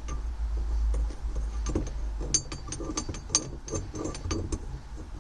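Stainless steel shift knob being spun by hand onto the threaded shift lever of a Suzuki Carry DA63T: handling rustle, then a quick run of small metallic clicks and ticks from about halfway in.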